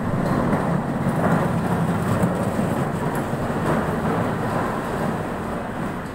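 Small wheels of a loaded hand cart rolling and rattling over a textured ramp floor: a rough, steady rumble that slowly fades near the end.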